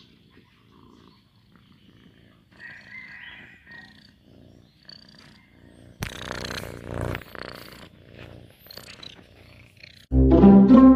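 Domestic cat purring close to the microphone, with loud rustling as the phone brushes against its fur about six seconds in. Music with plucked strings starts near the end.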